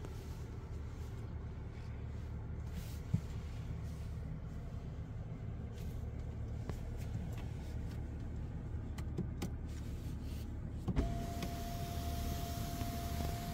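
Hyundai Grandeur Hybrid heard from inside the cabin: a steady low rumble with a few scattered clicks. About eleven seconds in there is a thump, then a steady high tone and a rise in hiss.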